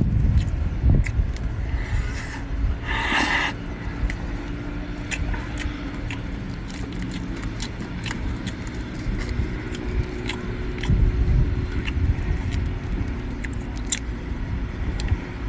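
Close-up eating of seafood: many small clicks and crackles of chewing and picking at shell, with a short hiss about three seconds in, over a steady low rumble.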